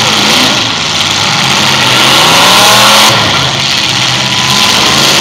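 Demolition derby cars' engines revving hard, the pitch climbing about a second or two in, over a dense hiss.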